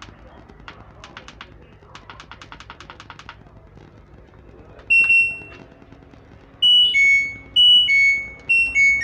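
LG front-load washing machine control board beeping from its buzzer: one high beep about five seconds in, then a short tune of high beeps alternating between two pitches near the end, as the board now responds to its start button. Before that, a run of quick, evenly spaced clicks.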